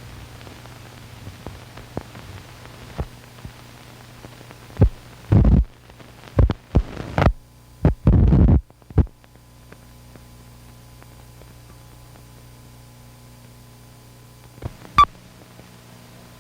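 Steady low electrical hum, with scattered faint clicks and a cluster of loud short pops and crackles from about five to nine seconds in, and one more sharp pop near the end.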